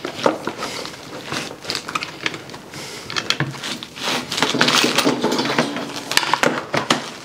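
Heavy battery cables handled on a wooden workbench: scattered clicks and knocks with rustling, scraping rubs as the cable is pulled and lifted, busiest in the middle.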